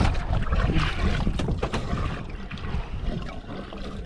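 Wind buffeting the microphone and water sloshing against a boat's hull, with a few light knocks on the deck.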